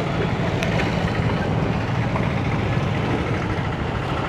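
Street traffic at a railway level crossing, mainly motorcycles riding across the tracks: a steady low engine and road rumble with no single event standing out.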